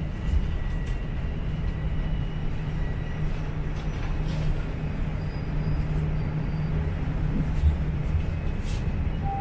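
Toronto subway train running, heard from inside the car: a steady low rumble with a steady low hum and a few light clicks.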